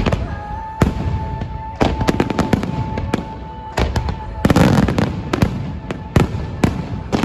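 Fireworks going off: a rapid, irregular series of sharp bangs, with a dense crackling flurry about two-thirds of the way in.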